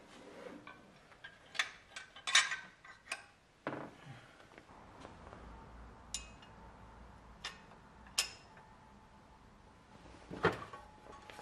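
Scattered clicks, clinks and light knocks as the timing belt covers and their brackets are handled and fitted onto a BMW M20 engine. The sounds are irregular, with a quieter stretch in the middle and a louder knock near the end.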